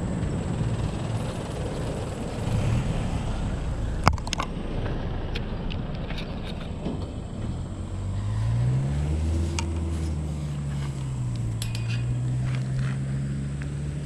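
Motor vehicle traffic on the bridge road: a low rumble, then about halfway through an engine note that rises in pitch as the vehicle accelerates and then holds a steady drone. A sharp click sounds about four seconds in.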